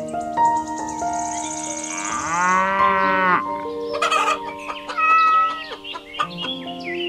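A cow moos once in a long drawn-out call about two seconds in, over background music with sustained notes; chicken clucks come in around it.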